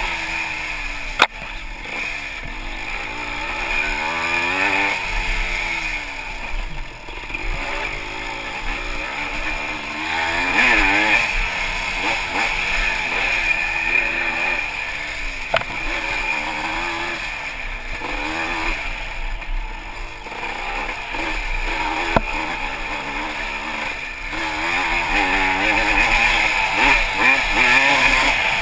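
Yamaha IT200 two-stroke single-cylinder dirt bike engine running under load, its revs rising and falling continually as the throttle is worked. A sharp knock stands out about a second in, with fainter knocks around the middle and later on.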